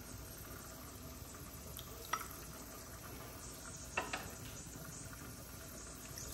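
Faint steady hiss with two light clinks on a ceramic mug, about two seconds and four seconds in, while oats and liquid are prepared in the mug.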